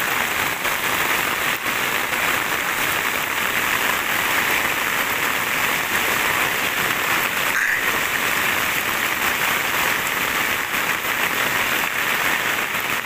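Heavy rain pouring down in a steady, dense hiss on a paved lane, plants and roofs.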